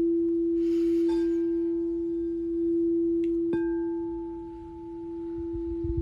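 Crystal singing bowl tuned to E ringing a single steady tone, the note gently swelling and fading. About three and a half seconds in, a light tap on the bowl renews its higher overtones.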